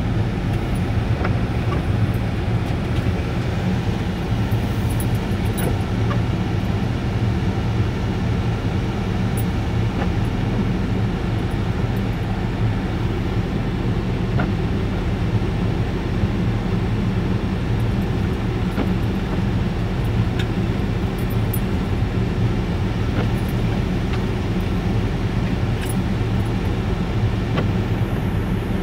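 Steady low rumble of a vehicle's engine and road noise, heard from inside the cabin.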